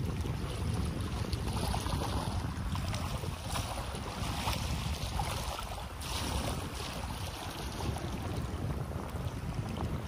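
Sea water lapping and splashing against concrete breakwater blocks, swelling a few times, with a steady wind rumble on the microphone.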